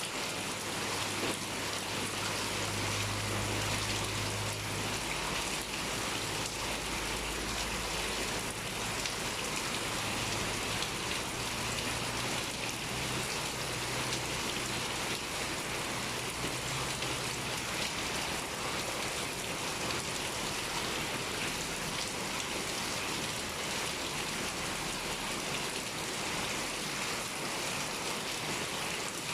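Heavy rain pouring steadily: a dense, even hiss of drops falling on surfaces.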